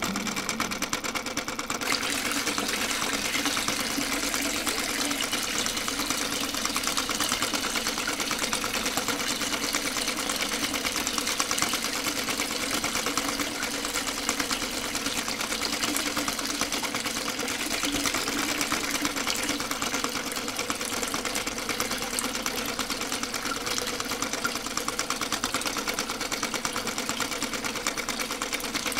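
Small electric motor inside a miniature model engine running steadily, driving a rubber belt to a tiny water pump, a fast, even whir with a fine rattle.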